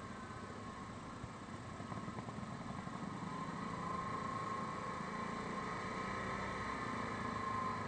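Yamaha Grizzly 550 ATV's single-cylinder engine running while riding, with a steady whine over it. It grows louder about two to four seconds in.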